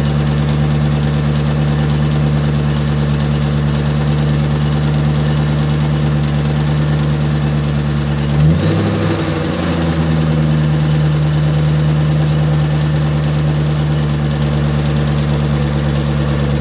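Ford fuel-injected engine idling steadily, seen at its throttle body and aftermarket intake tube. About eight and a half seconds in, the idle speed rises briefly, then settles back. The owner calls it a bad engine.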